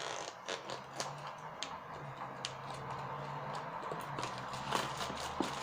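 Irregular clicks, taps and crackles of hands handling and opening a smartphone's cardboard packaging, over a steady low hum.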